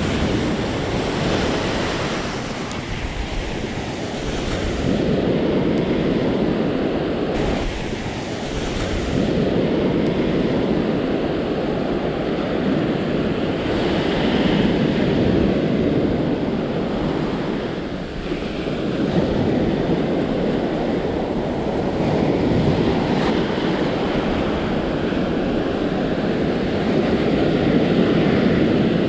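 Ocean surf breaking and washing up a sandy beach, the rush of water swelling and easing every few seconds.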